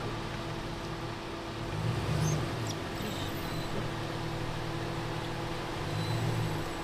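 4x4 vehicle's engine running at low revs while the vehicle creeps in reverse over rough ground. It is a steady hum that swells briefly twice.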